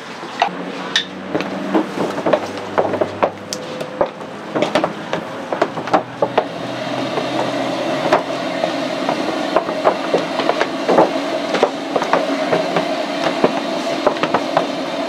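Irregular clicks and knocks from hot pulled sugar being stretched and worked by gloved hands on a steel tray while making sai mai floss. A steady mechanical hum comes in about six seconds in.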